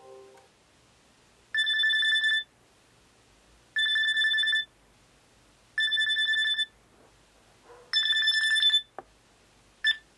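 Telephone ringing with an electronic trilling ring: four rings about a second long, two seconds apart, then a short fifth ring that cuts off near the end as the call is answered.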